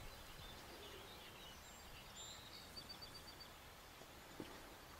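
Near silence: faint outdoor ambience with a few faint, short high chirps.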